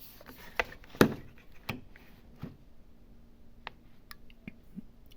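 A few scattered light clicks and knocks of small objects being handled on a workbench, the loudest about a second in, over a faint steady hum.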